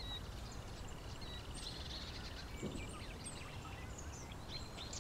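Outdoor ambience: a low steady background rumble with scattered small bird chirps and short whistles.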